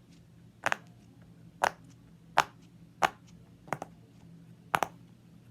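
Silicone pop-it fidget toy being pressed on its loud side, each bubble giving a sharp pop, about six pops spaced roughly a second apart, with two close together near the end.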